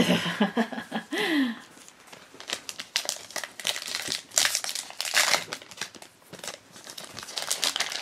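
Foil wrapper of a trading-card pack crinkling and tearing as it is opened by hand, in irregular crackles starting a couple of seconds in.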